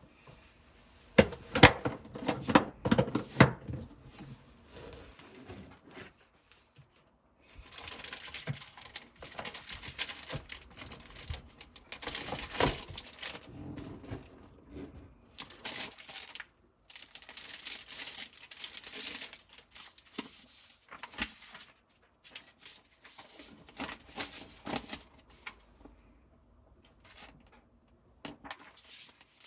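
Packaging being opened and handled: a run of sharp knocks and clatter, then long stretches of crinkling and tearing with short pauses between.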